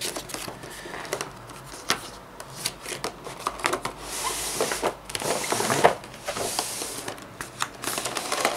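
Cardboard box and clear plastic packaging tray being handled as a diecast model is taken out of its box: rustling and sliding scrapes of card and plastic with scattered clicks and taps.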